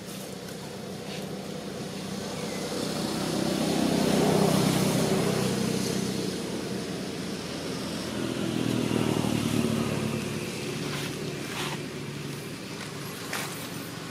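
Motor vehicle engine passing by, its hum swelling to a peak about four seconds in and fading, then a second, smaller swell around nine seconds.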